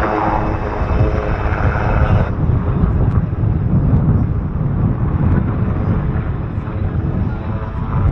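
Eurocopter AS332 Super Puma helicopter flying overhead: the whine of its twin turboshaft engines over the rotor noise, with the high whine dropping away suddenly about two seconds in, leaving a steady low rumble of the rotor.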